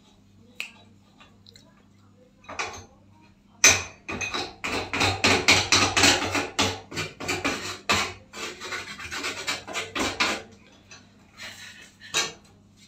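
Metal parts of a gas cooker's burner assembly being scraped and rubbed: a couple of single clicks, then a run of rapid rasping strokes, about three or four a second, for several seconds before it stops.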